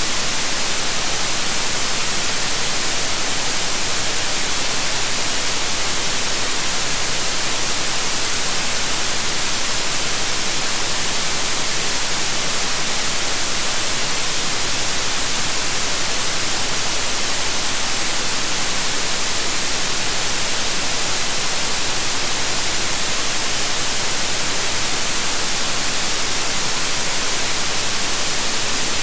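Steady white noise: an even, unchanging hiss, strongest in the high end, with no tones or events.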